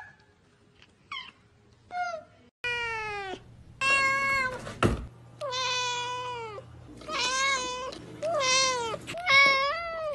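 A cat meowing over and over: two short, faint meows, then from about two and a half seconds in a run of six long, loud meows. A single sharp click comes near the middle.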